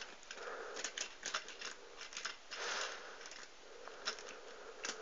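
Scattered light clicks and rattles of plastic model railway wagons being handled and set back onto the track by hand, with soft rustling in between.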